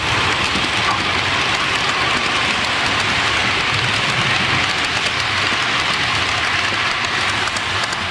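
Model railway trains running on the layout: a steady hum and rumble of model rolling stock on the track, unchanged throughout.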